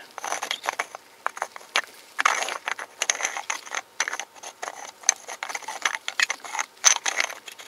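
Top of a new gear shift knob being screwed onto its threads by hand, with irregular clicking and scraping of the threads as it is turned.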